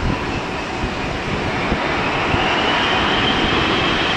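Airbus A380 jet engines on final approach, a steady rumble that grows louder with a high whine coming in about halfway through. Gusty wind buffets the microphone.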